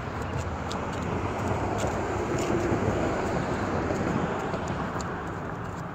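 Kayak cart's wheels rolling over pavement close by, a rumbling rush that grows louder toward the middle and fades as it passes.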